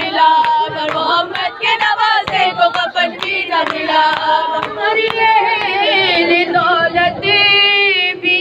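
Voices chanting an Urdu noha, a Shia mourning lament, together, with sharp rhythmic hand beats keeping time through the first half. Near the end one high voice holds a long wavering note.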